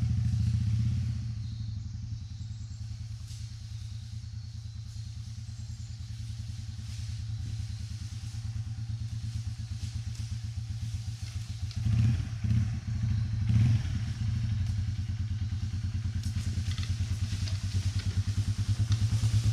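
Yamaha TW200's single-cylinder four-stroke engine pulling steadily in a low gear under load up a muddy hill, never missing a beat. There are two brief swells in revs about two-thirds of the way through, and it grows louder near the end.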